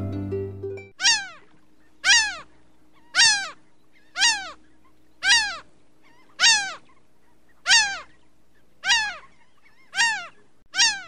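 A short animal call that rises and then falls in pitch, repeated about once a second, ten times, after background music stops about a second in.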